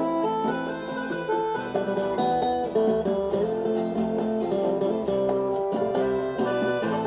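Instrumental break in a song: plucked acoustic guitar playing a melody over a steady rhythm.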